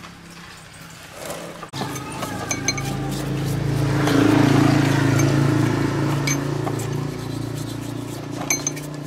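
Small steel bearing parts clinking against each other and a brush scrubbing them in a plastic tub of dirty oil, a few sharp clinks in all. Under them a steady low motor hum swells through the middle and eases off.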